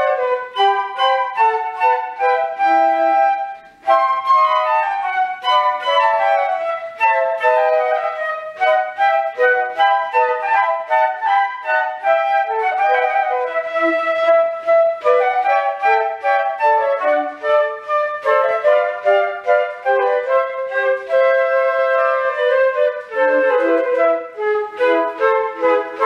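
Three concert flutes playing a trio together, several melodic lines moving at once in short notes, with a brief break about four seconds in before the playing resumes.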